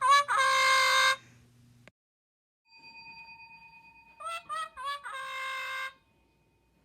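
A short bell-like jingle, three quick notes and then a long held note, played twice with a pause between.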